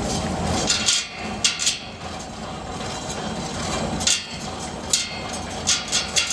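Irregular sharp strikes, like a hammer on hard material, about nine over the few seconds, some in quick pairs, over a steady low workshop rumble.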